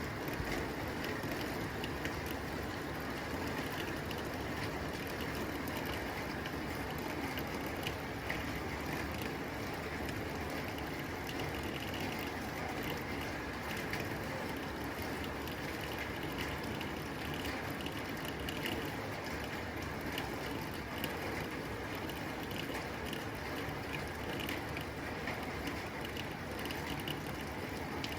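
Rain falling steadily on a tin roof: a constant wash of rain with many small, sharp ticks of drops striking the metal.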